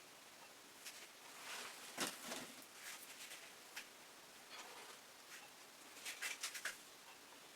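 Faint handling sounds of painting supplies: light scrapes and taps, with a sharp click about two seconds in and a quick run of clicks around six seconds in.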